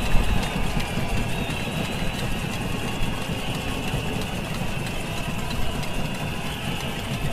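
A large protest crowd making noise with a batucada: drumming and banging merge into a continuous, dense rattling din with a heavy low rumble underneath.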